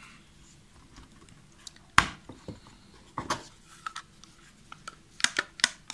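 Scattered sharp clicks and light knocks of hard plastic parts being handled as a BMW exterior door handle is put back together. The loudest click comes about two seconds in, and a quick run of clicks comes near the end.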